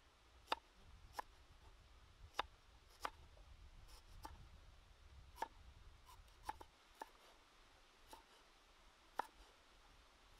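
Cleaver slicing and chopping fresh ginger root on a wooden chopping board: about a dozen sharp, irregular knocks of the blade meeting the board, over a faint low rumble that fades out about two-thirds of the way through.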